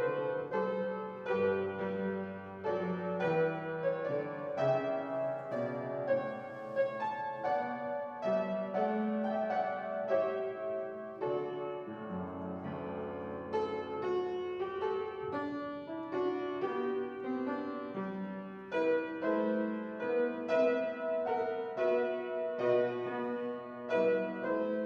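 Instrumental keyboard music: a steady flow of struck notes over long held bass notes.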